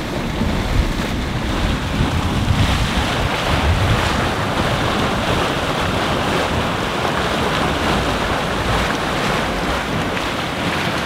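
Steady rushing noise with low buffeting: wind on the microphone mixed with the churning and hissing of a steaming hot-spring and mud-pot vent.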